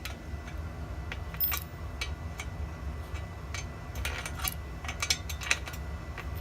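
Adjustable wrench and pliers clinking against a metal bolt and nut as the nut is screwed on and tightened: irregular light metallic clicks, coming thickest past the middle.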